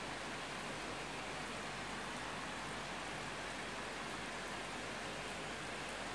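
Steady rain falling: an even, unbroken hiss with no thunderclap.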